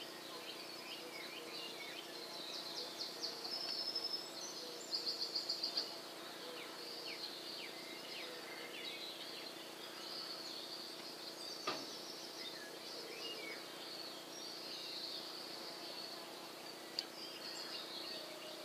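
Outdoor garden ambience of small birds chirping, with a rapid trill of about seven quick notes around five seconds in, over a faint steady hum. A single sharp click sounds about two-thirds of the way through.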